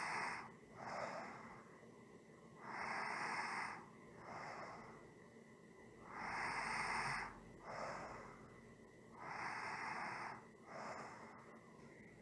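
A person breathing slowly and evenly. Each cycle is a long breath followed by a shorter, softer one, and the cycle repeats about every three seconds.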